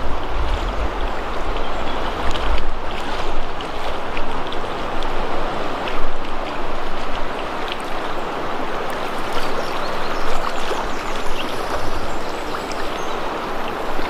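Fast river current rushing steadily around the legs of a wading angler. Low wind rumble on the microphone in the first few seconds.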